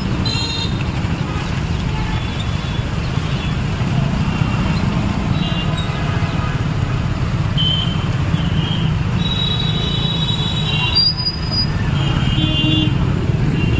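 Steady low engine-and-road rumble of riding a motorcycle through heavy traffic. Short high horn toots sound several times, one held longer about nine seconds in.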